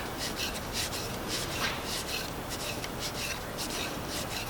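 Metal screw eye being twisted by hand into a pre-drilled wooden dowel: a quick run of short rasping creaks as the threads cut into the wood, about three a second.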